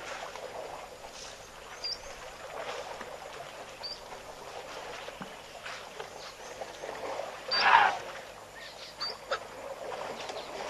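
Elephants sloshing water and mud at a waterhole, with a louder splash about three-quarters of the way through. Short high bird chirps come several times over it.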